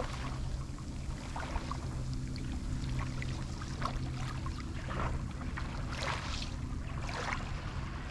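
Small waves lapping and washing onto a pebble shore in a string of separate washes, over a steady low hum.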